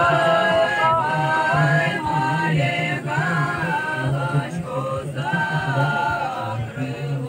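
A group of voices chanting in long held notes, the higher voices moving to a new note about every second over a lower, steadier part.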